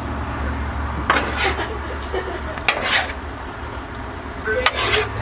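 Two metal spatulas scraping and clinking on a Blackstone steel flat-top griddle, turning sweet potato slices in a bubbling butter and brown-sugar glaze, with a light sizzle. The scrapes come about a second in, around three seconds, and again near the end, over a steady low hum.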